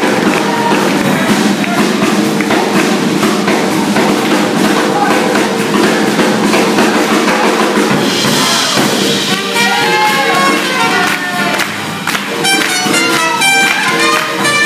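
Live jazz band playing swing music for dancing, dense at first and thinning out about eight seconds in. Sharp hand claps join in near the end.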